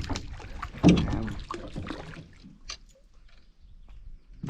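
Knocks and clatter of fishing gear being handled in a canoe, with the loudest thump about a second in and fewer, quieter clicks after it.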